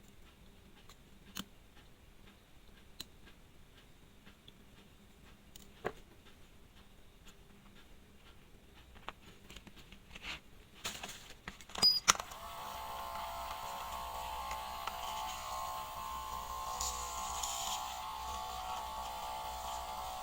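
Faint, scattered clicks and taps of small tools on a wristwatch, with a few sharper clicks about eleven to twelve seconds in. After that a steady buzzing hum sets in and holds.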